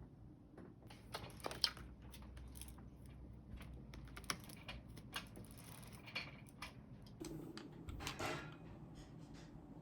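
Quiet desk-work sounds: scattered, irregular light clicks and taps, with a couple of short rustles, over a faint steady low hum.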